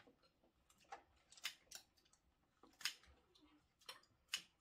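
Kitchen scissors snipping through cooked king crab shell: about six sharp, separate snips and cracks at an irregular pace.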